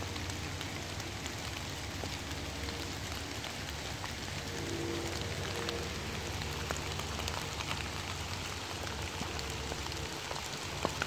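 Rain falling on woodland leaves and leaf litter: a steady patter with many small drop ticks.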